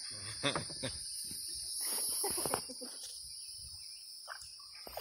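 Insects calling in a steady, high-pitched chorus that drones on without a break.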